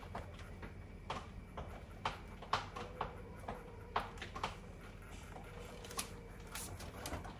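Irregular clicks and light knocks from handling a JVC PC-W300 cassette boombox: its controls being pressed and the cabinet being gripped and shifted, over a faint steady hum.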